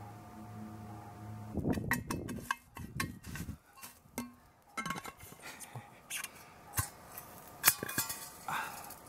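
Irregular clicks, clinks and knocks of objects being handled close to the microphone, starting about one and a half seconds in, over a faint steady hum.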